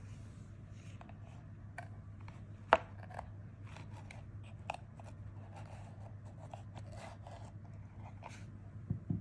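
Handling sounds as a glass perfume bottle and its leaf decoration are worked out of a small wooden box: scattered light clicks and knocks, one sharper knock nearly three seconds in, and soft rustling, over a low steady hum.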